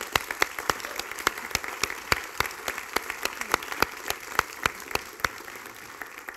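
Audience applauding, a dense patter of claps with a few sharper individual claps standing out. It thins and fades out near the end.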